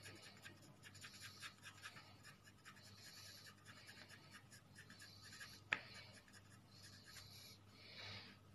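Faint scratching of a 2B graphite pencil shading on paper in rapid strokes, over a low steady hum. A single sharp click comes about two-thirds of the way through.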